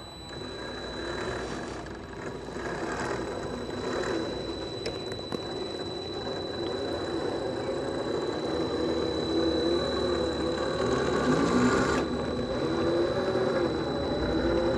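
Electric motor and geared drivetrain of an RC4WD Trail Finder 2 scale crawler whining as it crawls over dirt, the pitch rising and falling with the throttle.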